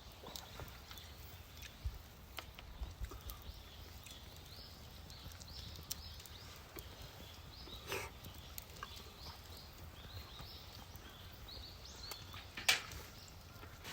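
Birds calling faintly in short repeated chirps, with scattered sharp clicks and a louder click near the end.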